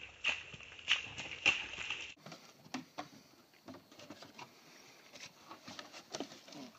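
Running footsteps squelching through wet mud and puddles, about three steps a second. About two seconds in, this cuts to quieter, scattered knocks and scuffs of people climbing over a wall of wooden pallets.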